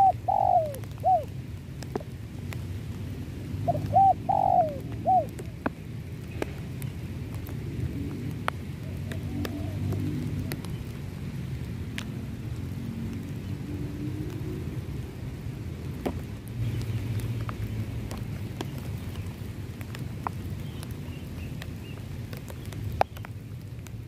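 Spotted dove cooing: two short phrases of three or four arched coo notes, one at the start and one about four seconds in.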